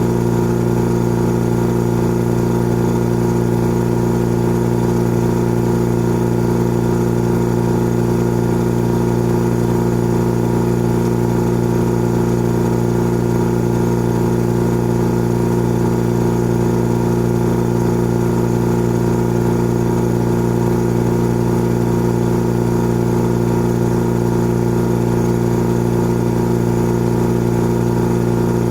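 Old air compressor running steadily: an even, unbroken motor hum with several strong low tones and no change in level.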